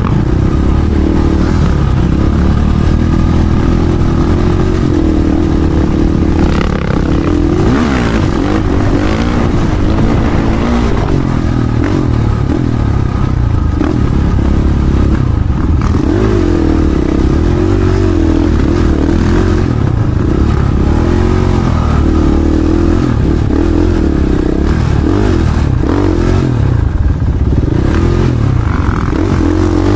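Dirt bike engine heard from on board while riding. It runs continuously, its pitch rising and falling again and again as the throttle opens and closes.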